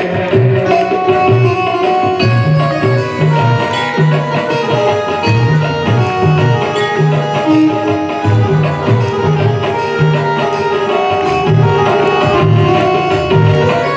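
Indian devotional music: a hand drum keeps a steady rhythm of low, booming strokes under held melodic notes.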